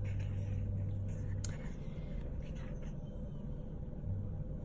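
Paper rustling as a sticker-book page is turned by hand, with one sharp click about a second and a half in, over a steady low hum.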